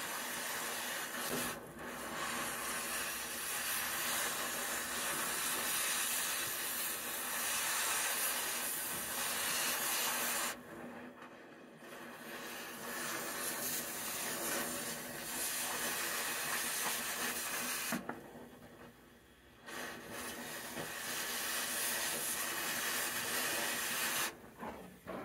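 Oxy-fuel cutting torch hissing steadily as it cuts off a nut. The hiss drops away briefly about a second and a half in, for a second or more around ten and a half seconds in, for about two seconds around eighteen seconds in, and again near the end.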